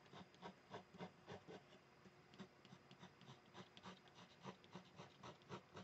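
Faber-Castell Polychromos colored pencil scratching faintly over watercolor paper in short, quick hatching strokes, about three a second, laying in highlights.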